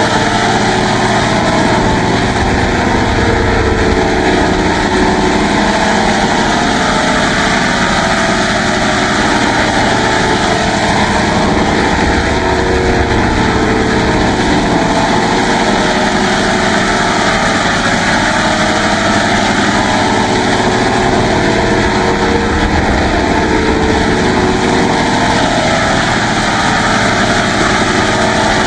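Synthesized effect sound from FL Studio's Vocodex vocoder plugin: a loud, steady, dense buzzing drone, engine-like, with a slow sweeping wobble in its tone.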